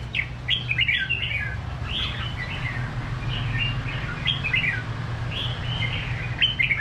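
Caged red-whiskered bulbuls singing: short, bright warbled phrases repeated one after another, over a steady low hum.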